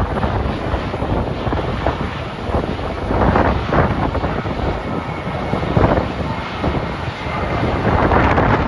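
Jet airliner engine noise mixed with strong wind gusting across the microphone, with a faint high whine in the second half.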